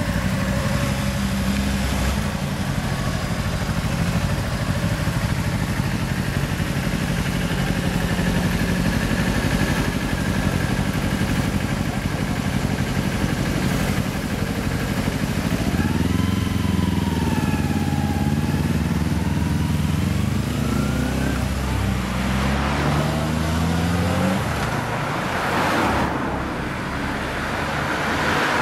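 Motorcycle engines idling steadily, one of them a Kawasaki Ninja 250R parallel twin with an r's gear Wyvern aftermarket exhaust. About halfway through they rev and pull away, the engine note rising and falling several times through the gears, then fading into passing road traffic near the end.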